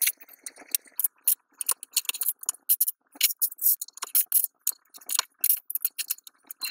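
Loose plastic LEGO pieces clicking and rattling as a hand sifts through a clear plastic parts tray, then small clicks of bricks being pressed together: a run of quick, irregular light clicks, several a second.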